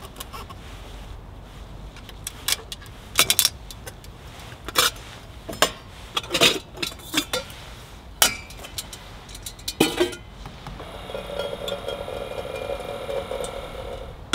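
Stainless-steel camping cookware, a nested pot and kettle set, clinking and clanking as pieces are lifted apart and set down, a string of sharp metallic clinks and knocks. Near the end comes a steadier ringing sound for about three seconds, then a knock as the kettle is set down.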